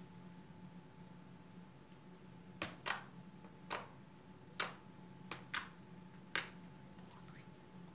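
Glitter slime being squeezed and worked in the hands for its sound, giving sharp little clicks and pops, about seven of them, spaced irregularly over the last two thirds.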